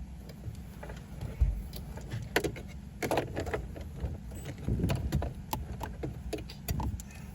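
Irregular clicks, taps and knocks of hand tools and metal parts being worked inside a car, over a low steady rumble.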